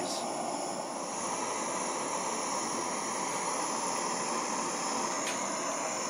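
Propane burner firing a homemade swirl furnace, a steady even hiss with the graphite core at about 1300 degrees. A faint click about five seconds in.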